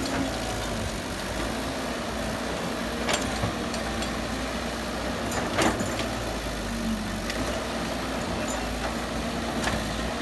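Excavator engine running steadily, with three short sharp knocks spread through it.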